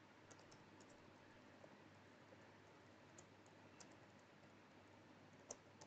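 Faint, scattered keystrokes on a computer keyboard, a few separate clicks, with one louder click near the end.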